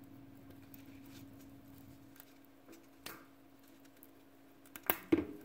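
Fingers handling a small hand-wound transformer's plastic bobbin and core: faint rustles and light clicks, a sharper click about three seconds in and the loudest clicks near the end. A steady low hum runs underneath.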